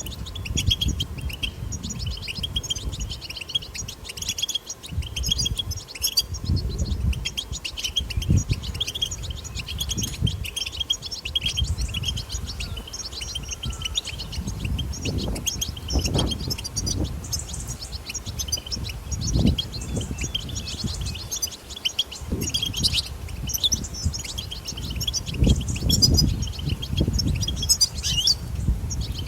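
European goldfinch twittering: a fast, unbroken stream of high chirps and trills. A low rumble swells and fades underneath.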